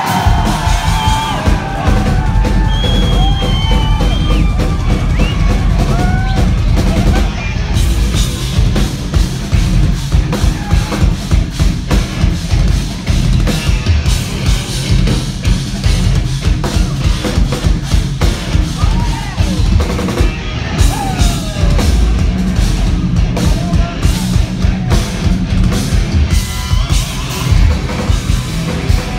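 Instrumental progressive metal band playing loud and live: a drum kit with a fast, dense kick-drum pattern under the band.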